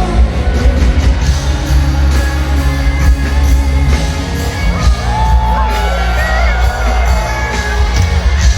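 Live pop concert music recorded from the arena floor: heavy bass and a steady beat, with high, wavering voices about five seconds in.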